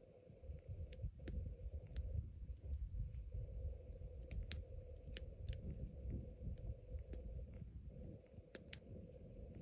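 Scattered sharp clicks and cracks, a dozen or so at irregular intervals, over a low rumble.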